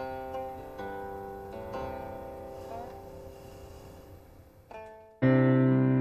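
Background score on piano-like keyboard: single sustained notes struck one after another and left to ring and fade, then a much louder, fuller chord with a deep bass comes in about five seconds in.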